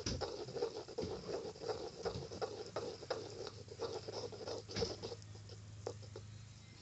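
Thick shampoo-and-body-wash slime being stirred gently in a bowl: quick, irregular wet clicks and squelches that thin out after about five seconds.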